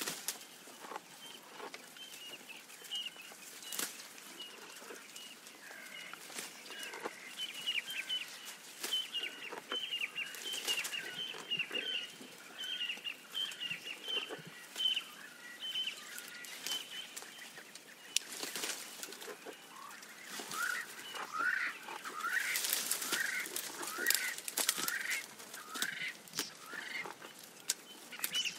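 Birds calling: runs of short, rapidly repeated high chirps, then a series of short rising call notes in the later part, with scattered sharp clicks.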